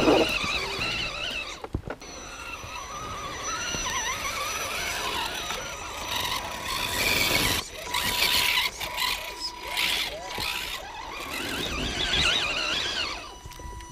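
Radio-controlled scale rock crawlers' electric motors and gearboxes whining as they climb, the pitch wavering up and down with the throttle, with short breaks and a thin steady high tone alongside.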